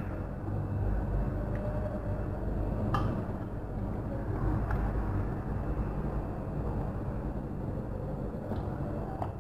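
A few light clinks of a metal serving spoon against a metal cooking pot as chicken curry is spooned into a glass bowl, about three seconds in, again near five seconds and once near the end. Under them runs a steady low rumble.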